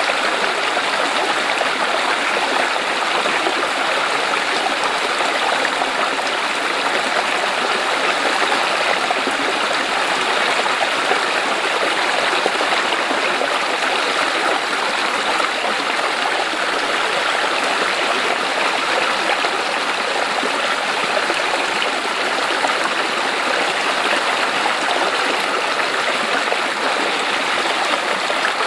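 Clear mountain stream flowing and splashing over rocks, a steady, even rush of water.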